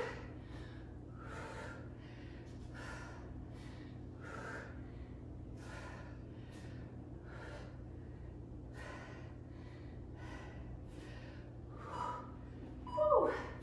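A woman breathing hard and rhythmically while doing push-ups, about two quick breaths a second, with a falling sigh near the end.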